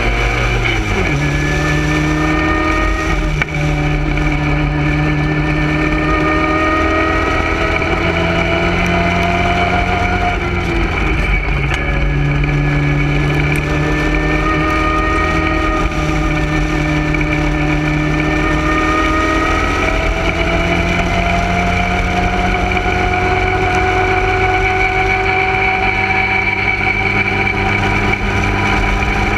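Small vintage sports racing car's engine pulling hard under full throttle, heard onboard with wind noise. The pitch climbs steadily through each gear and drops sharply a few times as the driver shifts up.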